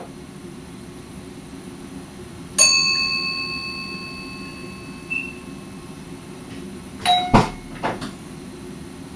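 A single bell-like ding rings out and fades over about two seconds, over the steady low hum of a train. A few seconds later come a quick cluster of clunks and clicks.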